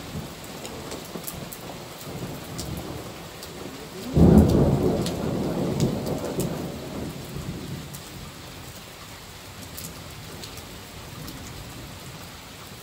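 Heavy thunderstorm rain falling steadily, with scattered sharp drop patters. About four seconds in, a sudden clap of thunder breaks out and rumbles, dying away over about three seconds.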